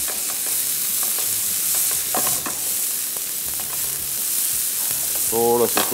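Chopped onion and green chillies sizzling in hot oil in a frying pan, stirred with a spatula that scrapes and clicks against the pan.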